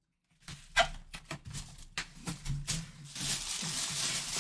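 Cardboard box being handled with a run of irregular taps and knocks, then from about three seconds in a steady crinkling rustle of the plastic bag wrapped around a full-size football helmet as it is lifted out of its box.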